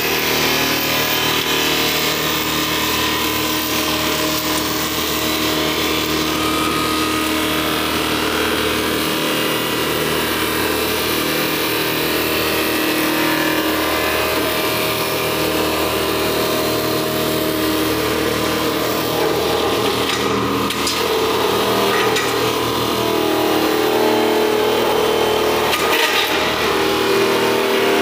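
Bharat Agritech sawdust making machine running under load, its electric motor driving the cutters that grind wood into sawdust: a loud, steady grinding with a motor hum underneath, and a few sharp knocks about three-quarters of the way through and again near the end.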